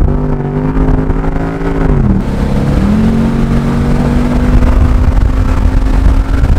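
2016 Ford Mustang GT's 5.0 V8 with a catback exhaust accelerating hard, heard from inside the cabin. The deep exhaust note climbs in pitch, drops as the automatic gearbox upshifts about two seconds in, then climbs steadily again through the next gear.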